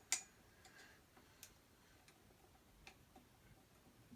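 Sparse faint clicks and ticks of vacuum cleaner parts being handled during assembly, with one sharper click just after the start and otherwise near quiet.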